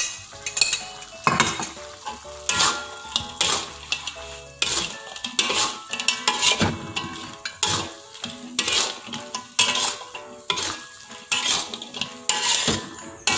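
Metal spatula scraping and knocking against a thin metal wok while stirring fried chicken pieces through thick sweet-and-sour sauce, about one stroke a second, with a light sizzle from the sauce.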